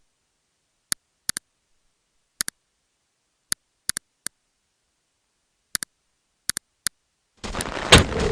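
Sharp, isolated clicks at irregular intervals, several in quick pairs, against dead silence. Near the end a dense, noisy sound comes in, with a loud hit just after it starts.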